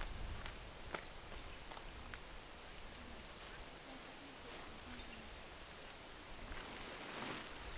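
Faint outdoor background hiss with a few soft ticks in the first couple of seconds, and a faint low wavering call between about three and five seconds in.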